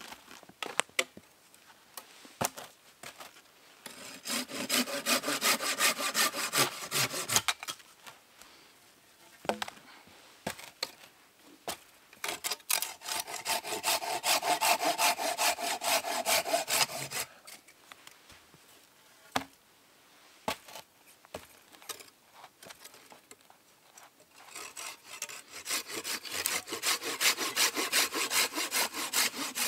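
A folding hand saw cutting through a log in three bouts of quick back-and-forth strokes, each lasting several seconds, with short pauses between them.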